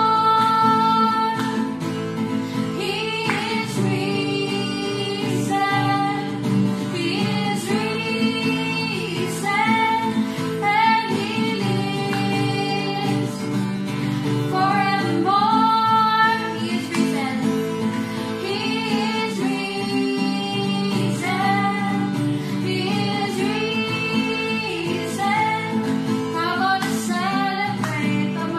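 Two female voices singing a worship song together to an acoustic guitar accompaniment.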